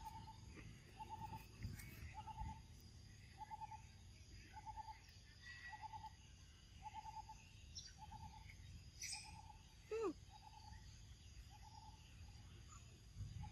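Faint outdoor ambience with an unseen animal's short trilled note repeating steadily about once a second. About ten seconds in there is one louder call that falls steeply in pitch.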